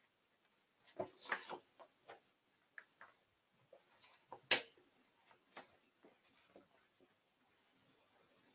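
Faint, scattered clicks and small knocks, irregular, the loudest about four and a half seconds in.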